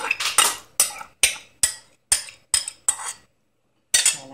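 A utensil repeatedly clicking against a small bowl as melted butter is scraped out of it into a glass bowl, about two to three sharp clinks a second. The clinks stop a little after three seconds, and one more comes near the end.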